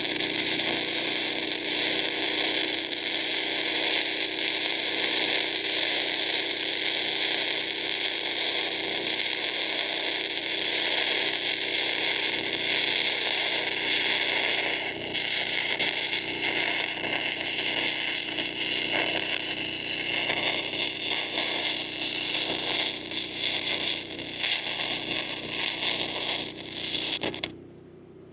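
Lincoln Electric Weld-Pak wire-feed welder laying a long continuous bead: a steady crackling, hissing arc that cuts off suddenly about a second before the end.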